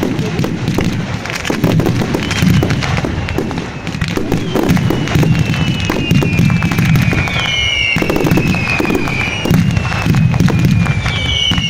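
Fireworks display: dense crackling and repeated low booms of shells bursting. Whistling shells glide down in pitch from about halfway through, and again near the end.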